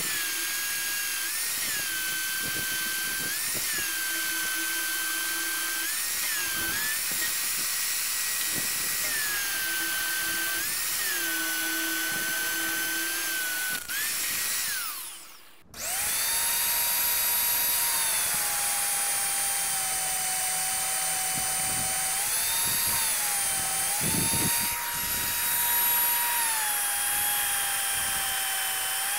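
Magnetic-base drill running while it bores 11/16-inch holes through a steel truck frame rail; its motor whine dips in pitch each time the bit is fed hard into the steel. The motor winds down about 14 seconds in and starts up again about two seconds later.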